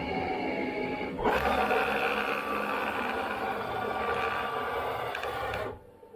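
CNC milling machine cutting: a steady spindle whine with cutting noise that grows louder about a second in, then cuts off suddenly near the end.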